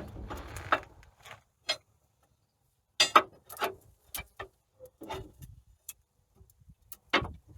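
Scattered metallic clicks and knocks of hand tools being fitted onto the sawmill carriage cable's adjustment bolt, a few near the start, a quick run of them about three seconds in, and another near the end.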